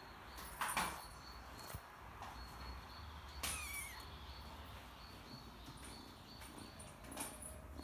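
Young calico kitten purring, a steady low rumble close to the microphone. A short knock under a second in and a brief high falling squeak about three and a half seconds in.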